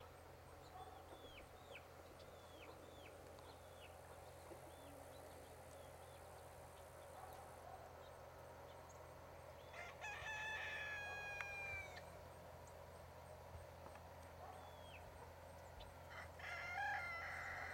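A rooster crowing, one crow of about two seconds a little past halfway and another near the end, with faint short chirps in the first few seconds.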